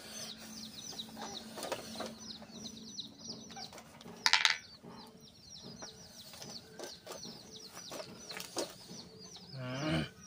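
Domestic chickens calling: a rapid, continuous run of short high chirps, a brief loud noise about four seconds in, and a lower call near the end.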